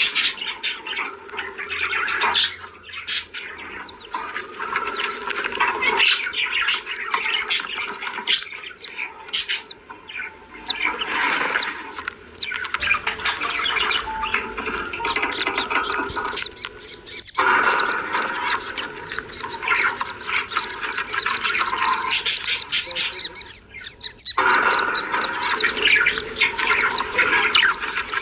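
Budgerigars chirping and chattering without pause, a dense stream of quick chirps and warbles. The sound breaks off for a moment twice, in the second half.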